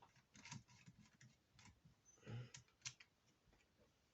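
Faint, scattered clicks and taps of small screws and a screwdriver being handled and driven into a laptop's bottom cover, with one slightly louder knock about two and a half seconds in.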